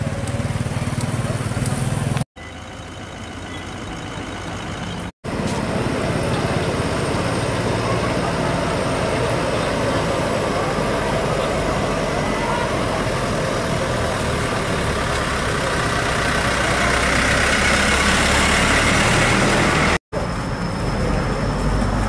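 Vehicle engines idling and running in a queue of traffic. A bus engine runs close by through most of it and grows louder near the end. The sound drops out briefly a few times.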